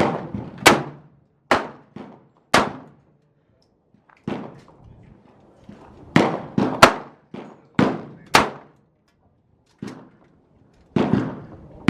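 Gunshots at a shooting range: about a dozen sharp reports at irregular intervals, some in quick succession, each with an echoing tail.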